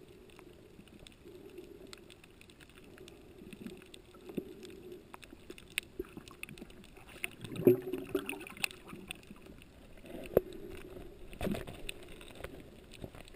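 Muffled underwater ambience picked up by a camera filming underwater: a steady low hum of water with scattered faint clicks, and a few louder knocks in the second half.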